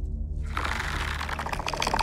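The Predator's soft growl, a fast pulsing, rattling growl that starts about half a second in, over a low steady musical drone.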